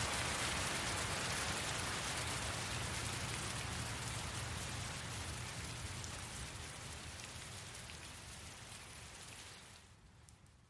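Recorded rain, a steady hiss of falling rain used as the ambient layer of a light-music track, fading out slowly and dying away near the end.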